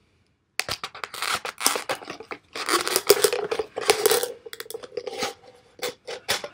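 A Kizlyar Supreme Delta Tactical fixed-blade knife sawing and cutting through a thin plastic bottle. It starts about half a second in as a dense run of rasping, crackling strokes, with a steady tone under the cutting through the middle.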